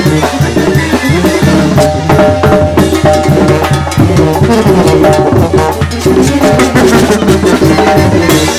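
Loud music with a drum kit, snare and bass drum keeping a steady, dense beat under held notes from other instruments.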